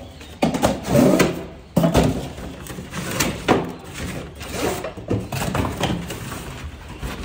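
Irregular knocks, scrapes and rustling as a large Ryobi wet and dry vacuum and its parts are handled and pulled out of a cardboard box. The loudest knocks come about one and two seconds in.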